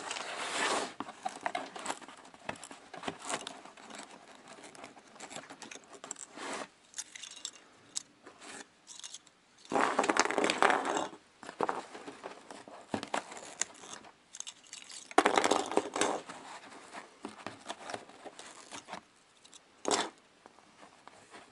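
Plastic parts bag crinkling and rustling as small spare propellers are handled and taken out. There are louder stretches of crinkling about ten and fifteen seconds in, and a single sharp click near the end.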